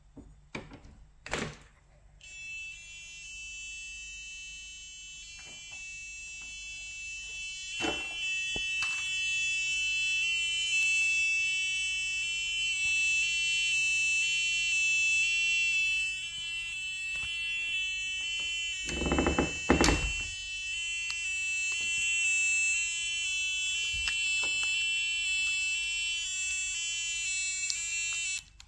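Micro:bit door alarm going off: a buzzer plays a repeating electronic alarm tune of quickly alternating notes over a high steady tone. It starts about two seconds in and cuts off just before the end. A few clicks come early on, and two loud thumps come about two-thirds of the way through.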